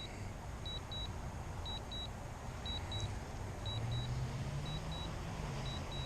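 Drone remote controller beeping a short double beep about once a second, its warning during an automatic landing with the battery low. Under it runs a faint low hum that grows and rises slightly about four seconds in.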